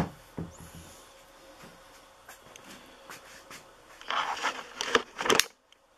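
Handling noises: a sharp knock right at the start, light rustling, then a burst of scraping, rustling and clicks about four to five seconds in that stops suddenly.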